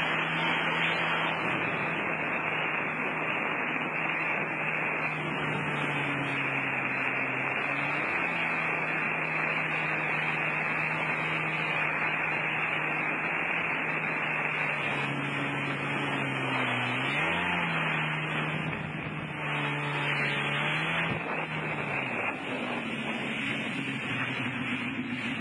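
Personal watercraft engine running at speed under a heavy rush of water spray and wind. The engine note holds steady, then dips and climbs again several times in the second half.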